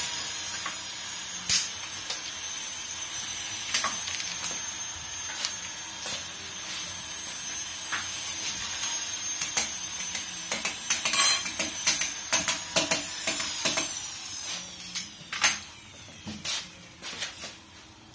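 Self-adhesive PVC interior film crackling and rustling as it is pulled and pressed by hand around the ridges of a fluted wooden panel, over a steady hiss. The sharp crackles come thicker and louder in the second half.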